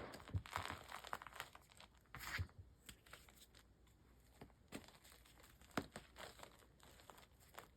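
Reformed gym chalk crumbling and crunching under the fingers: a crackly run of small crunches for the first couple of seconds, then scattered single crackles.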